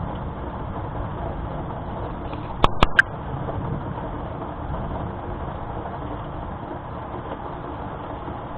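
Steady low rumble and hiss of outdoor storm ambience, fading slightly, broken by three sharp clicks in quick succession about two and a half seconds in.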